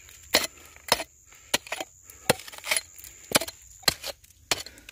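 A steel mattock striking into a bank of crumbly weathered rock and clay, about eight sharp blows at roughly two a second, each followed by a brief rattle of loosened gravel.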